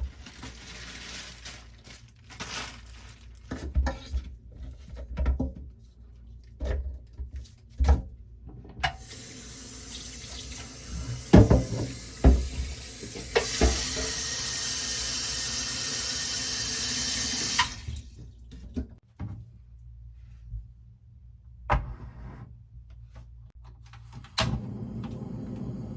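Kitchen tap running into a sink for about nine seconds, heavier for the last four or so, then turned off. Short clinks and knocks of kitchen utensils come before and after it.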